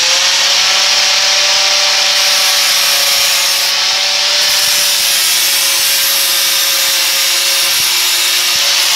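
Electric angle grinder with a thin cut-off disc running at full speed with a steady whine, cutting through a small metal piece.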